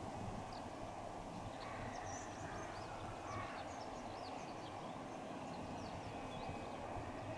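Steady hum of JR West 521 series electric trains standing at a station platform. Small birds chirp quickly many times through the middle.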